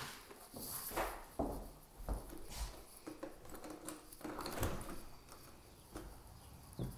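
Irregular footsteps and handling knocks, with a glass-paned door being opened in the second half.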